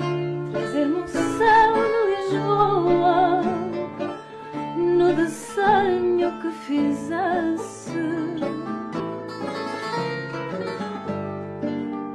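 Music: a wavering melody line over steady held low notes.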